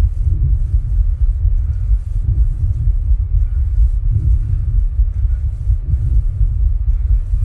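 Human heartbeat picked up through the chest, regular thumps under a heavy, steady low rumble, recorded while the person rebreathes his own air from a plastic bag.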